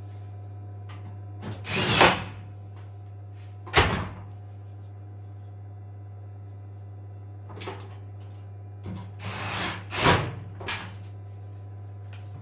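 Knocks and scraping of parts and tools being handled while a washing machine is worked on: a scrape and knock about two seconds in, a sharp knock near four seconds, and more scraping ending in a knock near ten seconds, over a steady low hum.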